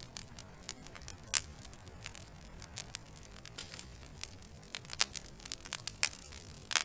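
Wood fire burning in a fireplace: logs crackling with irregular sharp pops over a low steady rumble of the flames. A few louder pops stand out, about a second and a half in and again near the end.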